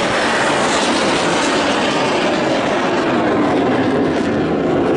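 Jet engines of a formation of F-16 fighters flying overhead: a loud, steady rush of engine noise.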